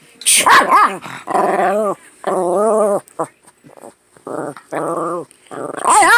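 Chihuahua growling and barking in repeated wavering, grumbling calls, its angry reaction to sneezing. A sharp burst of noise comes about a third of a second in and again near the end.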